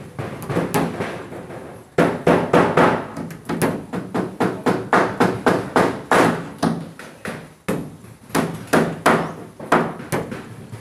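Hammer striking plywood practice boards: a few light taps, then from about two seconds in a long run of sharp blows, two or three a second, with a short pause past the middle.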